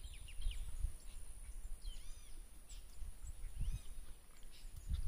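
Small birds chirping in short, arched calls, a few at a time, over a low wind rumble on the microphone and a faint steady high-pitched hum.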